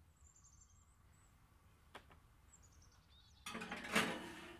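A metal baking pan slid onto an oven rack: a scraping, rattling burst of about a second that peaks near the end, with a low steady hum starting alongside it. Faint high chirps and a single click come before it.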